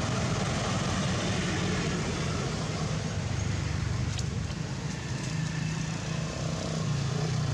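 A steady low engine hum runs throughout, with a single short click about four seconds in.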